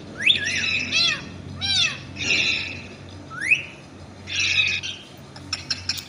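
Indian rose-ringed (ringneck) parakeet calling: short whistled chirps that rise and fall in pitch alternate with harsh, raspy screeches, about three of each. A few sharp clicks follow near the end.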